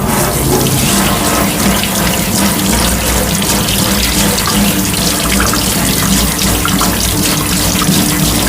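A kitchen tap running steadily into a sink as potatoes are washed under it, their skins scrubbed with a rough sponge.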